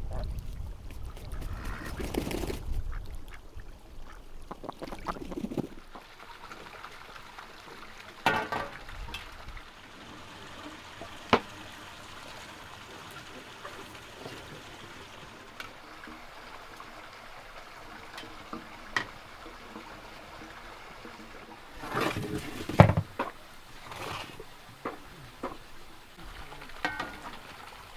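Domestic white geese calling at the water's edge, followed by the scattered clinks and knocks of cooking as boiled chicken legs come out of a steaming pot, with a louder clatter about three-quarters of the way through.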